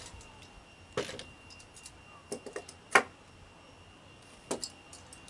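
A few sharp, irregular knocks on timber, the loudest about three seconds in, as a joist is nailed into a shed base frame.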